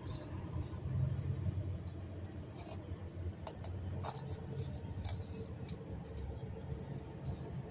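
Vehicle engine running unevenly, its low rumble rising and falling, with a few sharp ticks near the middle. The engine is coughing, and the owner wonders whether the trouble lies in the gas tank.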